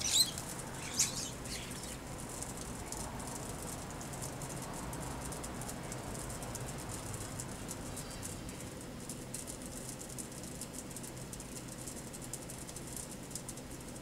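European starlings flapping their wings at a hanging suet feeder: two short bursts of wingbeats right at the start and about a second later. After that there is only a faint steady background with occasional small ticks.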